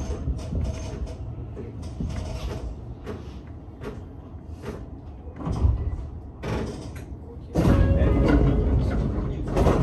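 Seibu 30000-series electric train running on the Tamako Line, heard from the front of the train: a steady rumble of wheels on track with irregular clicks and knocks. It gets much louder and fuller abruptly about three-quarters of the way through.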